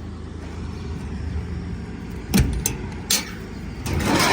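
A vehicle engine running steadily at low speed, with a few sharp knocks about two and a half and three seconds in, and a rushing noise building near the end.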